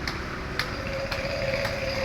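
Railroad-crossing warning bell clanging about twice a second, over a steady rumble, with a held mid-pitched tone starting about halfway through.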